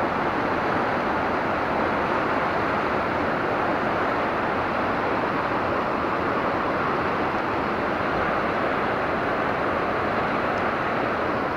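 River rapids rushing, a steady even noise that doesn't change.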